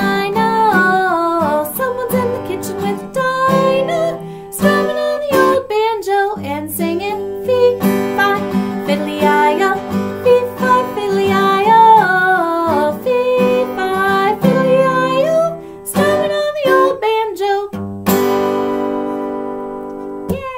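Woman singing while strumming an acoustic guitar. About eighteen seconds in the singing stops and the last strummed chord rings out.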